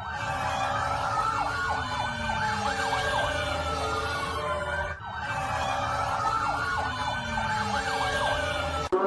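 Siren wailing in a slow rise and fall, twice over with a short break between, with quick short sweeps layered on top and a low rumble underneath.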